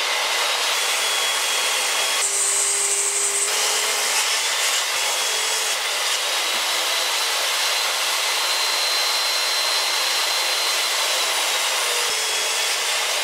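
Portable jobsite table saw running with a steady motor whine, ripping boards of solid timber. Its tone shifts briefly about two seconds in.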